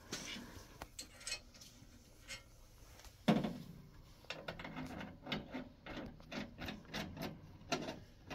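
Hands working a pipe fitting at a gas water heater's control valve: scattered clicks and rubbing, a sharp knock a little over three seconds in, then a run of quick light ticks.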